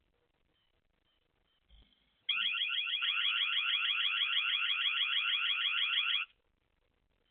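A loud, rapidly pulsing, buzzing trill starts about two seconds in, holds steady for about four seconds and cuts off suddenly, over faint regular high chirps.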